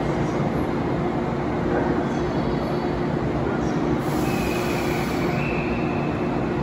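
A JNR-type 413 series electric train standing at the platform, its onboard equipment giving a steady hum over a continuous rushing noise. A thin, steady high tone joins about four seconds in and stops near the end.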